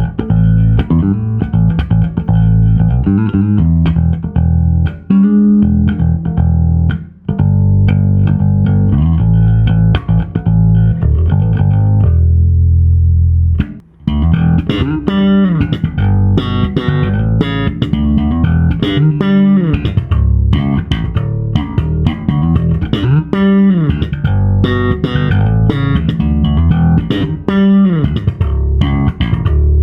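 Dragonfly CL-DJB5 electric bass guitar (alder body, maple neck) played solo as a demo: plucked notes and lines, with sliding notes in the second half. The playing breaks briefly about seven seconds in and again at about fourteen seconds.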